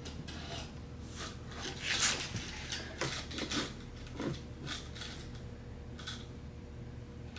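Handling noise of a plastic side splitter being fitted under a car's side skirt: a scattered run of short knocks, scrapes and rustles as the part is pressed into place. The loudest comes about two seconds in.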